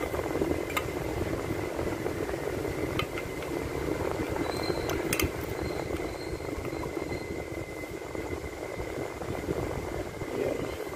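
A steady mechanical hum with a faint high whine over it, and a few light clicks as a throttle body and its idle air control valve are handled.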